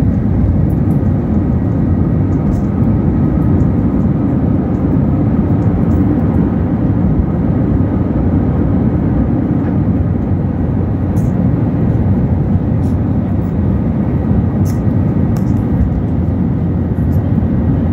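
Airbus A321 jet engines at takeoff thrust, heard inside the cabin over the wing: a loud, steady roar through the end of the takeoff roll, liftoff and the initial climb.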